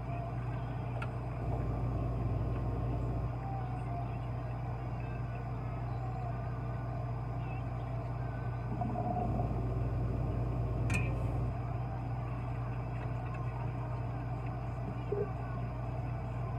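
Steady low machine hum with a faint high-pitched whine over it, and a light tick about a second in and another near the eleven-second mark.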